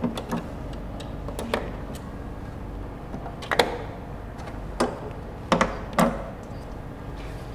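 Scattered sharp clicks and light taps, about eight in all and uneven in spacing, of small metal wrenches being fitted into the holes in an LED display module's face and turned to release its front-service locks, over a low steady hum.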